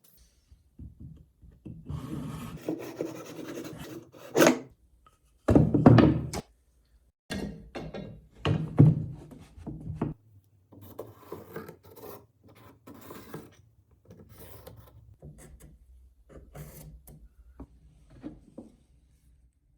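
Hand-tool work on a sword in the workshop: scratchy filing and rubbing strokes broken by a few heavier knocks, in short stretches that start and stop abruptly.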